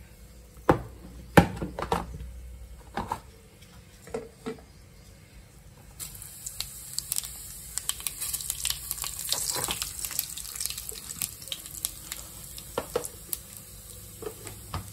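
A few sharp knocks against a metal kadai, then about six seconds in, cumin and mustard seeds dropped into hot oil start sizzling and crackling. The crackle grows dense, then thins out as the tempering goes on.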